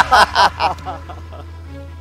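A man's voice trails off in the first half-second, then quiet background music over a steady low hum.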